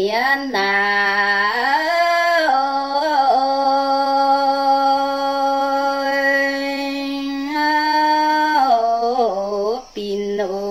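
A woman sings a Red Dao (Iu Mien) folk song in a single voice with no accompaniment. She holds long, drawn-out notes and slides between them, with one note held for about five seconds in the middle. She takes a short breath near the end before the next phrase.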